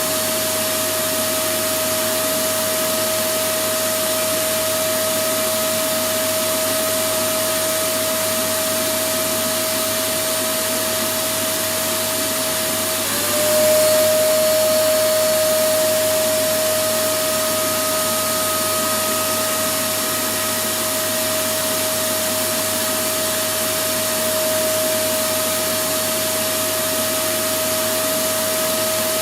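Electric vacuum cleaner running continuously: a steady rush of air with a steady motor whine. About 13 seconds in the whine dips in pitch for a moment and the sound briefly gets louder before settling again.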